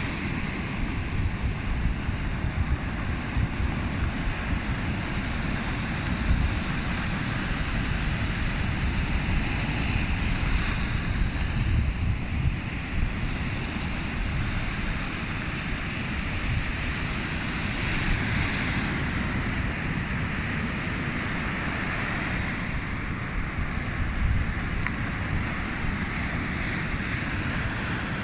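Sea waves breaking and washing up the shore, with wind buffeting the microphone as a steady low rumble.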